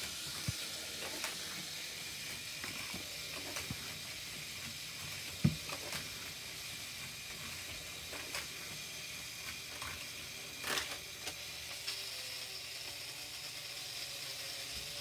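Steady low hiss with a few light clicks and knocks, the sharpest about five and a half seconds in and a short cluster near eleven seconds.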